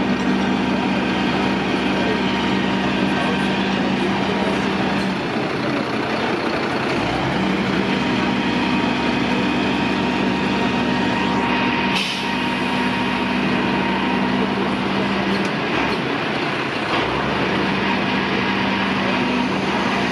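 Turntable ladder fire truck's diesel engine running at raised speed to drive the ladder hydraulics as the outriggers are set down, a steady hum that drops out twice and comes back. A short hiss of air about twelve seconds in.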